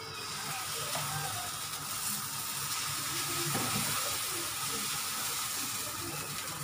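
Moong dal batter sizzling on a hot pan as it is poured and spread into a round with a spoon, a steady hiss.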